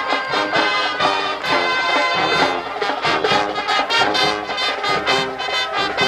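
High school marching band playing, with brass carrying the tune over a steady drum beat.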